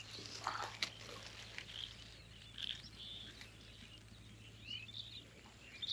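Scattered short bird chirps and calls, with a sharp click a little under a second in, over a faint steady low hum.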